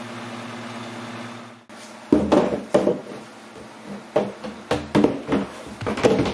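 A steady hum, then, after a short break, a string of irregular knocks and clatters as the lid panel of an aluminium-edged road case is gripped and moved.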